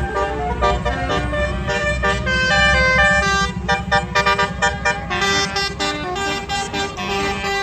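Tour bus's basuri telolet horn playing a fast melody of short, shifting notes over the low rumble of the bus's engine.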